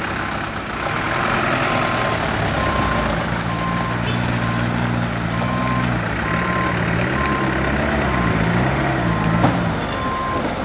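Diesel engines of loaded oil-palm fruit trucks running on a dirt road. One truck's engine note rises and falls through the middle as it pulls past. Over it all an electronic truck beeper sounds steadily, about two beeps a second.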